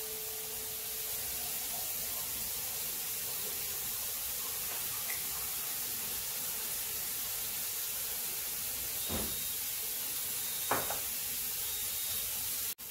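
Chopped scallions, onions, celery and wiri wiri pepper sizzling in hot oil in a wide metal pan, a steady even hiss, with two faint ticks late on.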